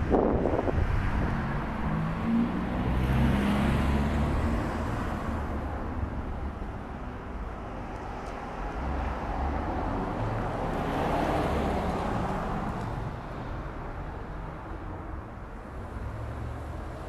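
Road traffic, cars passing on the street beyond the tracks: a steady low rumble that swells twice, about three seconds in and again about eleven seconds in.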